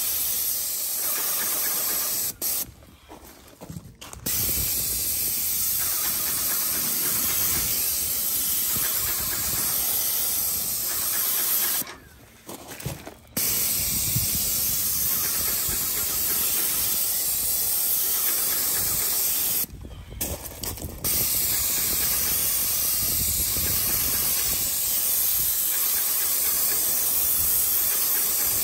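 Airless paint spray gun hissing steadily as it sprays paint, stopping three times for a second or two when the trigger is let go.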